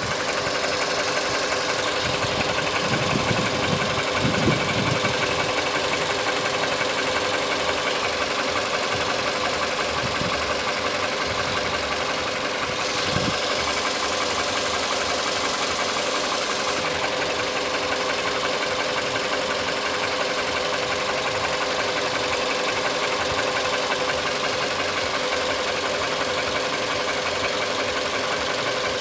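Engine idling when fully warmed up, with a knock in it.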